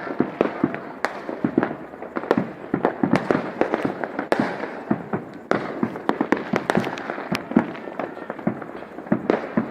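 Fireworks and firecrackers going off: many sharp bangs and pops, close together and irregular, over a continuous background din.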